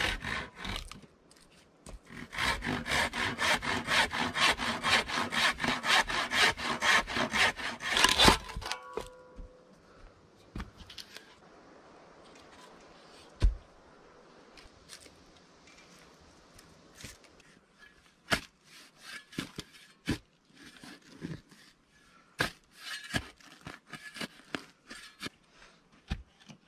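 Handsaw cutting through a log in quick, rhythmic back-and-forth strokes for about six seconds, then stopping. Later, scattered light knocks and scrapes of wood and soil.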